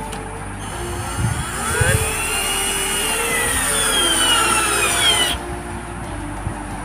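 Cordless drill driver running as it drives a screw into a wooden batten. Its whine rises in pitch, falls, then stops abruptly about five seconds in. The screw goes in without the bit slipping.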